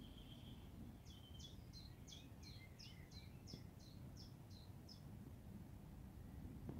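A songbird singing faintly: a short held high note, then about a second in a phrase of about a dozen quick, high, falling notes, roughly three a second, over a low steady outdoor rumble.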